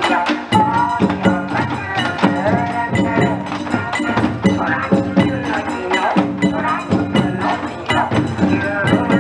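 Bon odori music: wadaiko drums struck in a steady beat under a wavering folk melody.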